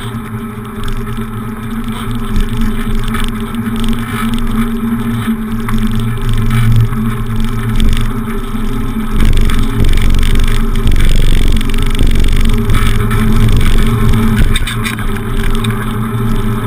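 Wind and rolling noise on a handlebar-mounted camera's microphone as a beach cruiser bicycle is ridden, a continuous low rumble with a steady hum running under it.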